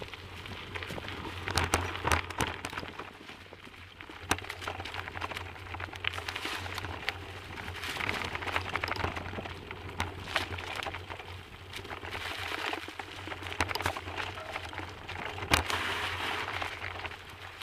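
Bicycle rolling over a rough dirt track strewn with dry leaves: a continuous crunch and crackle from the tyres, with frequent sharp knocks and rattles as the bike hits bumps, louder around two seconds in and again near the end, over a steady low hum.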